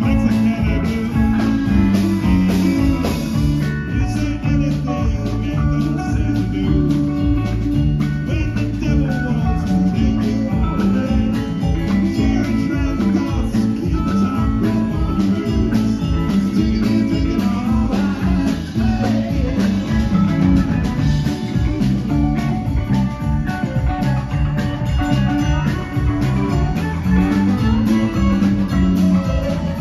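Live rock band playing: guitars, bass guitar, keyboard and drum kit, with a moving bass line under a steady beat.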